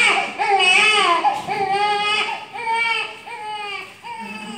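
Infant crying: about six wails in a row, loudest in the first second or so, then softer.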